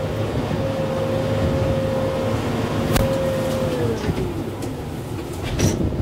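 Kubota cab tractor's diesel engine running under load as the loader grapple works into a tree, with a steady whine that slides down in pitch about two-thirds of the way through. A sharp crack about halfway through and a few more cracks near the end as branches and vines break.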